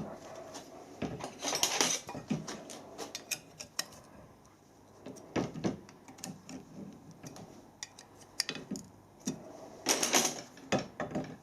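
Light metallic clicks and clinks of small hand tools and a threading die holder being handled while the split die's adjusting screws are reset, with louder clusters about two seconds in and near the end.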